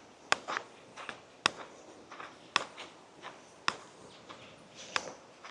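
Footsteps of a person walking in sandals along a trail, with a sharp step about once a second and softer scuffs between.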